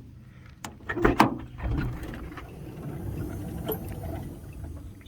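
Chrysler Town & Country minivan sliding door being worked from the outside handle, now that its latch cable is reconnected. There is a loud clunk about a second in, then a low steady rumble and a light click near the end.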